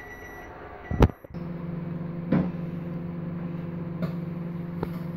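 Microwave oven started with a loud click about a second in, then running with a steady hum, with a couple of light knocks over it.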